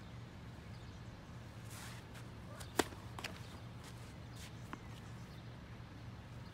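Tennis ball impacts: one sharp pop about three seconds in, with a few lighter knocks around it, over a steady low hum.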